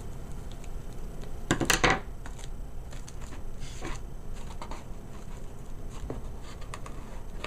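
Handling noises from a small tissue-wrapped gift box and satin ribbon: light taps and rustles, with a louder quick run of clicks about a second and a half in.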